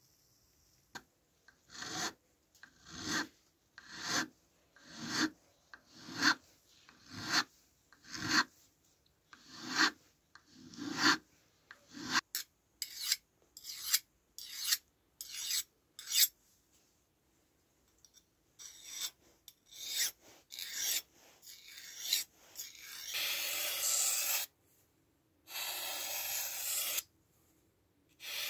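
Steel knife blade being sharpened, scraping against an abrasive in even back-and-forth strokes, about one a second. The strokes then come quicker and shorter. Near the end come three longer, steady scrapes of a couple of seconds each.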